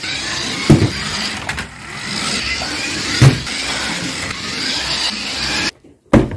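Small electric motor of a 1:16-scale radio-controlled toy car whirring steadily as it drives across a wooden floor, with two sharp knocks along the way. Near the end the whir cuts off suddenly and a single thump follows.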